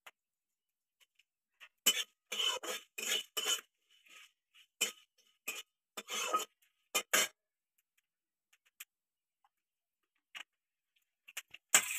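Flat metal spatula scraping and clattering against an aluminium kadhai, stirring seeds and dried red chillies roasting over a wood fire, in a run of short strokes between about two and seven seconds in. A sharper knock comes just before the end.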